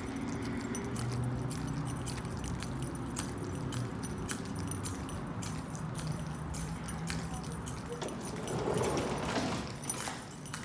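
Keys jangling in irregular little clicks while walking, over a low steady hum, with a brief rush of noise near the end.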